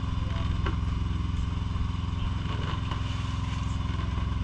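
An engine aboard a fishing boat running steadily, a low, even drone with a fast regular firing pulse that does not change.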